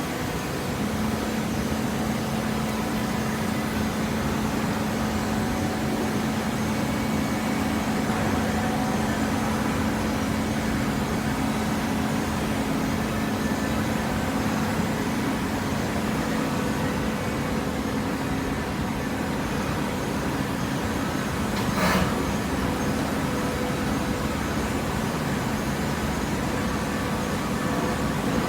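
Machinery running steadily with a low, even hum. There is one sharp knock about 22 seconds in.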